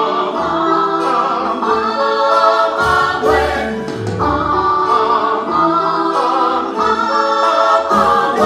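Musical-theatre ensemble singing together, holding long notes over a band accompaniment with a pulsing bass beat.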